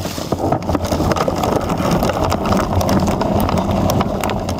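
Mountain bike rattling and clattering down a rough dirt trail, heard through a camera mounted on the bike: a heavy rumble of knobby tyres on the ground with frequent sharp knocks from the frame, chain and suspension over bumps.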